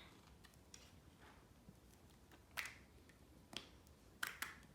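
Near silence broken by a few short, faint clicks and crinkles of small plastic toy packaging being handled and opened.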